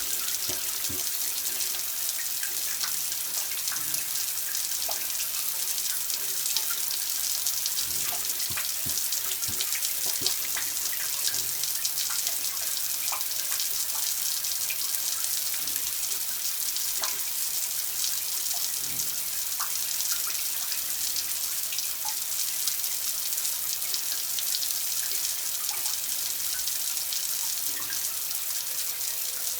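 Water running steadily, a continuous splashing hiss with small droplet plinks scattered through it.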